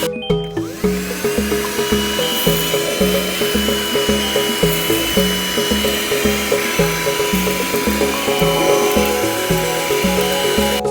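Background music with a steady beat, over the steady high whine of a small 100 W car vacuum cleaner motor running.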